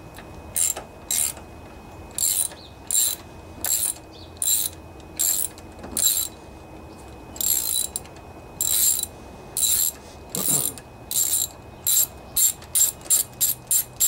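Hand socket ratchet clicking in short repeated strokes, coming quicker near the end, as bolts on the cylinder head of a Briggs & Stratton Intek twin are loosened.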